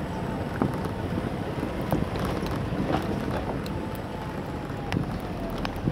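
Off-road vehicle driving slowly over a rocky track: a steady low engine rumble with scattered knocks and rattles from the body and stones under the tyres. Wind noise on the microphone.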